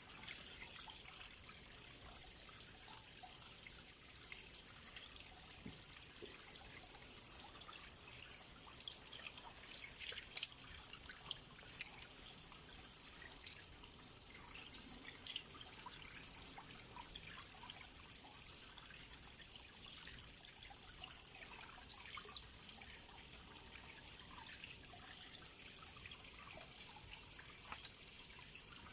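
Faint trickling water with a steady high-pitched hiss throughout and scattered small splashes or ticks.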